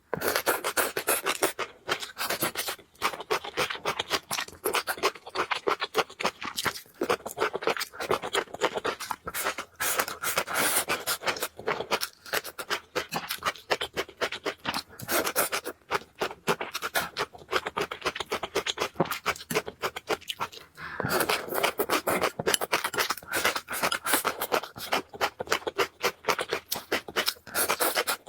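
Close-miked eating sounds of a person chewing and slurping noodles: a dense, continuous run of quick clicks and smacks.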